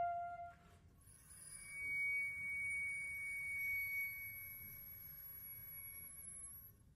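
Solo concert flute: a held note ends just after the start. After a brief pause a soft, breathy, very high note swells in and slowly fades away.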